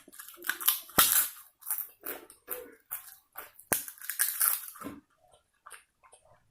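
Close-miked eating sounds: a quick run of wet, crackly chewing and mouth smacks for about five seconds, then only a few small ones.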